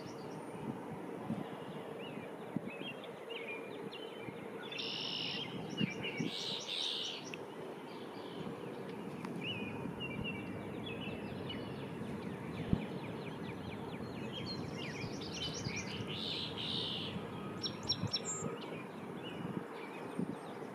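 Song sparrow singing, its song of sharp opening notes and a trill given twice about ten seconds apart, with softer bird notes between, over steady background noise.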